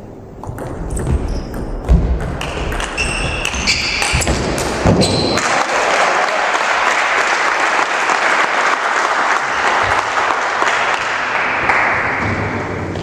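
Table tennis rally: sharp clicks of the ball on bats and table, with short high squeaks, for about five seconds. The point ends and the spectators applaud steadily for about seven seconds.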